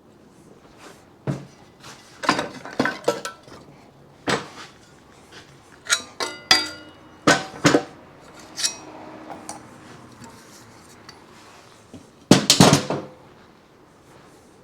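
Hand tools and metal motorcycle parts clinking and clanking during teardown work: a string of separate sharp metallic knocks, some briefly ringing, with the loudest cluster of knocks near the end.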